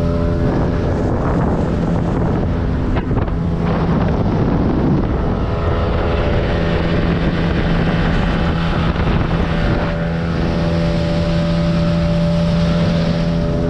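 Small outboard motor running steadily at speed, a pitched drone pushing the little boat, with wind buffeting the microphone and the hiss of the wake. The engine note wavers and breaks up for a few seconds about three seconds in, then settles back to a steady drone.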